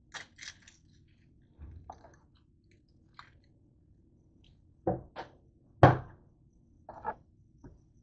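Kitchen items being handled and set down on a countertop: scattered knocks and clicks, with a few louder thuds about five to six seconds in.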